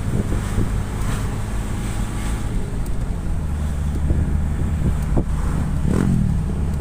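Nissan Urvan's ZD30 four-cylinder diesel engine running steadily, with wind buffeting the microphone and a few light knocks over the steady hum.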